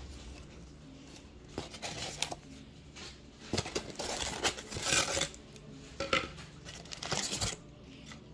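Cardboard shipping box flaps and a polystyrene foam liner being handled and pulled open, giving irregular bursts of scraping and rustling, the loudest about five seconds in.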